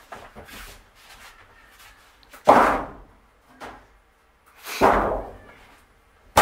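Sheet-metal ceiling panel of a school bus being pulled loose: two loud metallic crashes about two seconds apart, each starting suddenly and fading over about half a second, with light scuffing before them.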